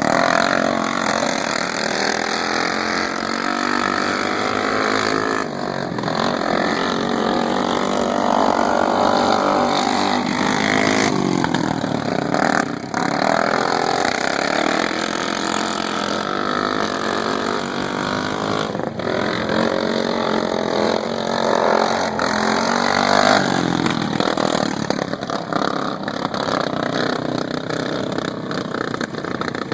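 Racing lawn mower engine running hard around an oval track, its pitch rising and falling every several seconds as it slows and speeds up.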